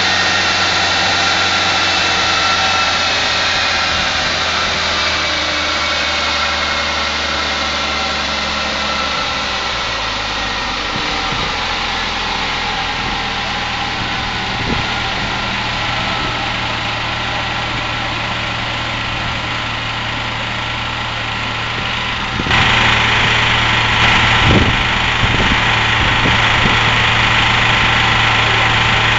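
Peugeot 205 Mi16's 16-valve four-cylinder engine running steadily with the car on a rolling-road dyno, under a high whine that slowly falls in pitch over the first half. About 22 seconds in the sound suddenly gets louder and hissier, and stays so.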